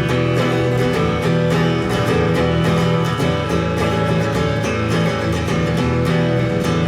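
Acoustic guitar strummed steadily in a country-style instrumental break between sung lines, with bass notes sustained underneath.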